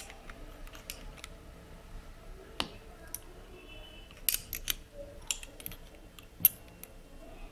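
Scattered sharp metal clicks and taps from a spanner working the M6 nut that tightens an MK8 hotend into its extruder carriage. There is a quick run of clicks a little past halfway, and the loudest tap comes near the end.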